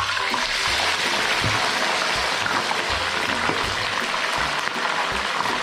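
Crayfish deep-frying in hot oil, a loud, steady crackling sizzle. A low, regular beat of background music runs underneath.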